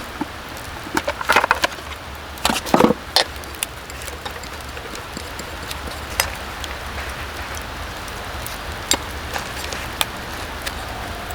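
A few clusters of short knocks and clatters, mostly in the first three seconds, then occasional faint ticks, over a steady low background.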